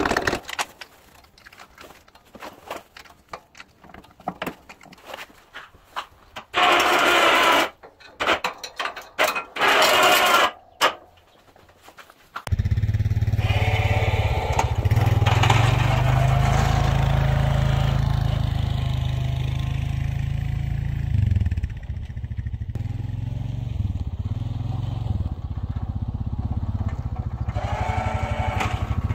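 Scattered metal clicks and two loud, rushing bursts of about a second each, then, about twelve seconds in, the single-cylinder engine of a 2019 Honda Rancher 420 ATV cuts in running steadily as the quad drives with its plow blade.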